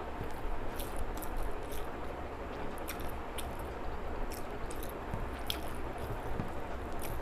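A person chewing and eating a meal of rice and fish curry, with wet squishing mouth sounds and scattered short clicks over a steady low hum.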